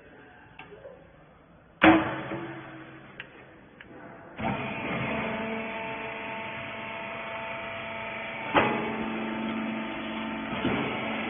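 A loud metal bang with a short ring about two seconds in. A couple of seconds later the rag baler's motor starts and runs steadily, humming with several steady tones, with a few knocks over the top.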